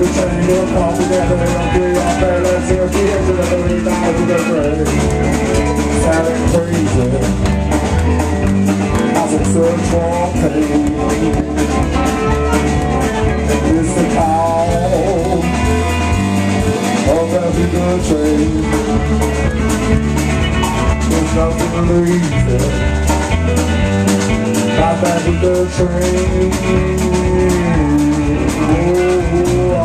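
Live blues band playing: drum kit keeping a steady beat under electric guitar, with the frontman singing into the microphone.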